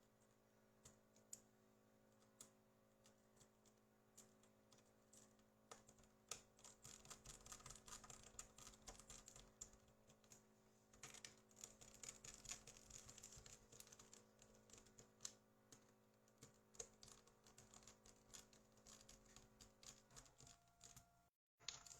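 Faint, quick, light clicks and ticks, thickest through the middle, over a steady low electrical hum that cuts off near the end.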